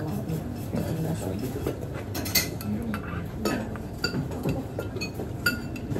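A metal spoon clinking against a ceramic bowl during eating: a few light, separate clinks, each ringing briefly, over a low background murmur.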